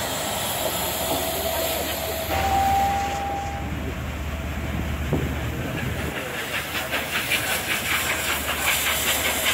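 A diesel locomotive rumbles past, then a brief steady whistle note sounds. From about six seconds in, LNER A1 Pacific 60163 Tornado's exhaust beats evenly, about four beats a second, with steam hiss, as the steam locomotive works its train.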